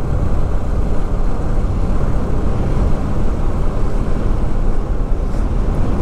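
KTM Duke 250's single-cylinder engine running steadily as the motorcycle cruises along, mixed with a loud rush of wind noise on the rider's microphone.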